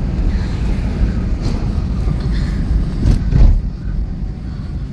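Car road noise heard from inside the cabin: a steady low rumble with wind on the microphone, swelling louder about three seconds in.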